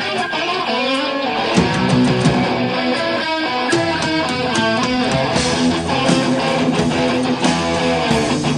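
Heavy metal band playing: a distorted electric guitar riff over bass guitar and drums, with steady cymbal and drum hits.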